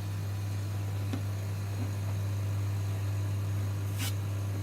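Steady low hum of a laser engraver's extraction fan running, with a faint tick about a second in and a sharp click about four seconds in.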